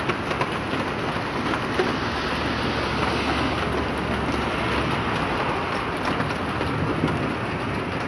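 Heavy rain mixed with hail falling on paving and a parked car: a steady, dense hiss with many small ticking impacts.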